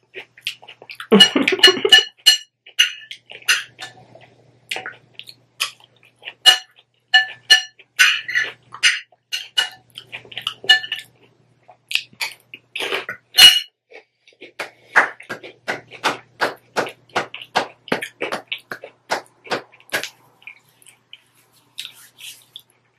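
A metal spoon clinking and scraping against a glass bowl, some strikes ringing briefly, mixed with close-up crunchy chewing of a hot Cheeto taco salad. Near the middle the chewing falls into an even run of about two crunches a second.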